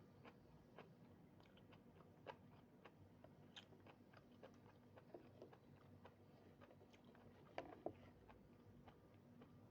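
Faint, close-up chewing and mouth clicks of someone eating, with a louder pair of bites about seven and a half seconds in.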